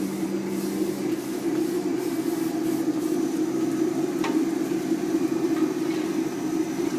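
Industrial sawdust burner running: a steady drone of blower and flame, with a low hum that fades out in the first second or two.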